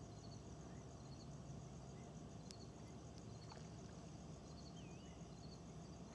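Faint ambience: a low steady rumble under insects chirping in a high, evenly pulsing trill, with one short wavering bird whistle just before five seconds in.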